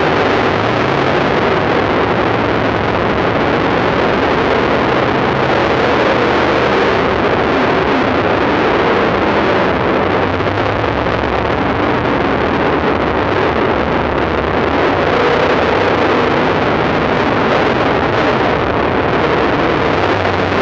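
Dirt late model race cars' V8 engines running hard as the field slides through the turn, a steady loud wall of engine noise with no separate passes standing out. The sound is harsh and distorted.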